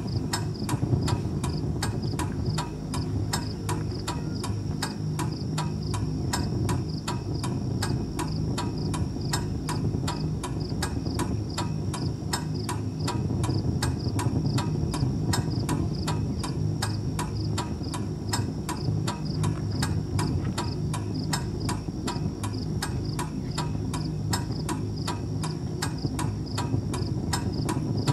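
Even, regular ticking, about three ticks a second, over a steady low hum and a thin high chirring.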